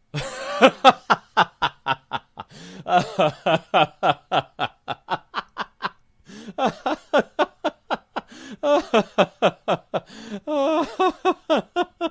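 Laughing sound effect: a person's voice laughing in rapid, evenly spaced 'ha-ha' pulses, several a second, in a few runs broken by short pauses.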